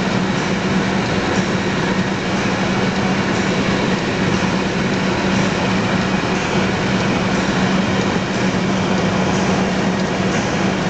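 Steady road and tyre noise with a constant low engine drone, heard inside the cabin of a Mercedes-Benz car cruising at highway speed.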